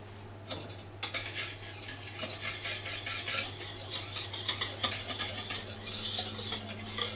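Small hand whisk beating sifted cocoa powder into a foamy egg, sugar and honey batter in a mixing bowl: quick scraping, clicking strokes against the bowl, starting about a second in.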